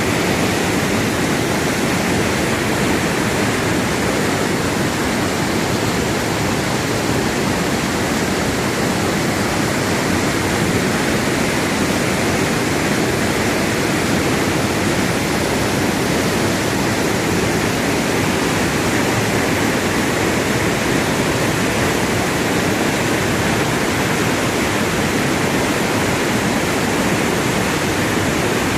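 Waterfall in flood after heavy rain, a large volume of water falling in a loud, steady rush.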